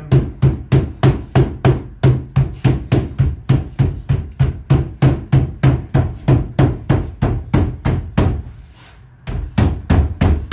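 Rapid, steady hammer taps, about three to four a second, each with a dull thud, as code 4 lead flashing clamped on a workbench is tapped over into a bend. The tapping stops for about a second near the end, then resumes.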